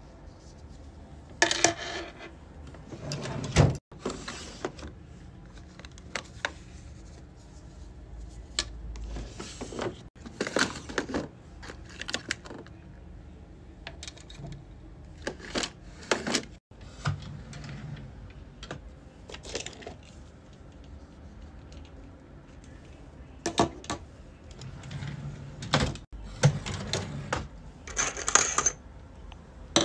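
Safety keychain parts being handled: scattered clicks and clinks of metal key rings, clasps and plastic pieces set down one by one, with a brief jingle of metal keychains near the end.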